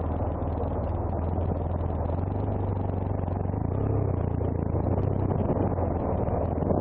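BMW F800ST's parallel-twin engine idling steadily at a standstill, then pulling away slowly near the end as the bike starts to roll.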